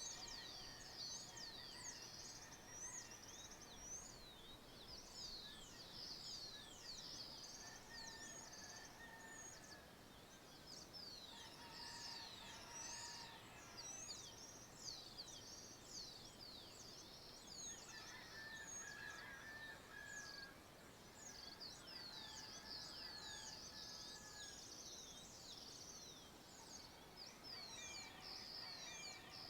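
Faint dawn chorus of birds in the countryside: many high-pitched chirps in quick succession throughout, with some lower, longer notes mixed in.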